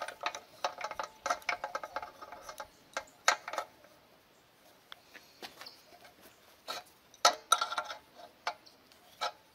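Wrench clicking and clinking against a metal compression fitting as its nut is tightened down, crushing the ferrule onto the nylon air tube. The taps are irregular, with a quieter pause about halfway through.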